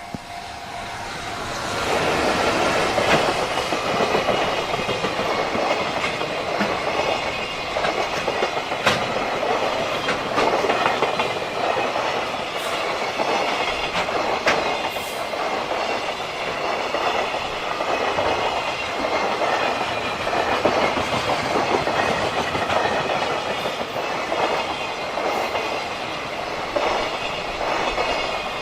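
A JR Freight train rolling past, its wagon wheels clicking over the rail joints in a steady clickety-clack. It builds up over the first two seconds, then runs on loud and even.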